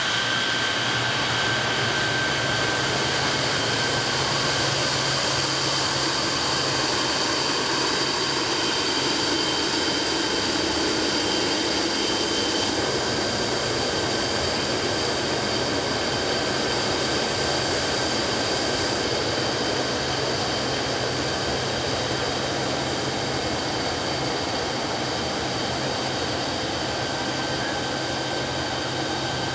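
Saab SK 37E Viggen's Volvo RM8 turbofan running at low taxi power: a steady rushing jet noise with several high, steady whine tones over it, fading slightly near the end as the jet moves away.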